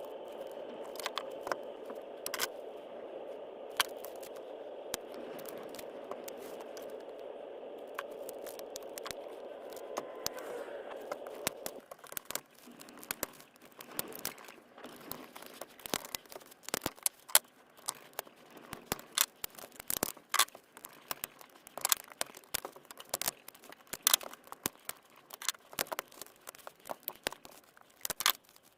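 Rapid, irregular clicks, taps and scrapes of hands working on a DeWalt 18V battery pack, its plastic case and parts being handled. For about the first twelve seconds a steady hum runs under the clicks, then it stops and only the dense clicking goes on.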